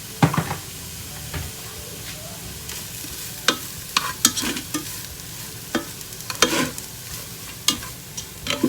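Vegetables and shredded chicken sizzling in hot oil in a pan while a spatula stirs and scrapes them, with irregular clicks and knocks against the pan.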